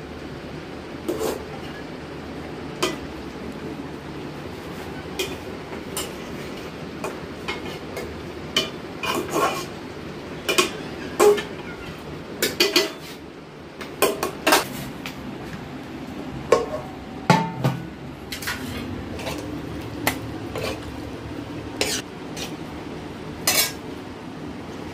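A steel serving spoon scraping and clinking against a metal cooking pot and steel plates as cooked rice is dished out, in many irregular sharp clinks over a steady low hiss.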